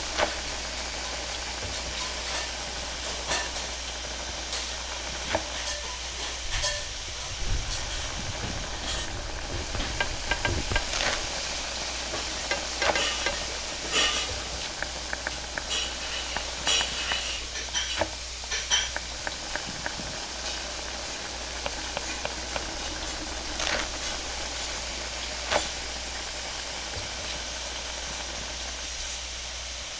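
Steady hiss of a hot griddle frying, with scattered sharp slaps and clacks of roti canai dough being thrown and stretched on a steel counter, busiest in the middle.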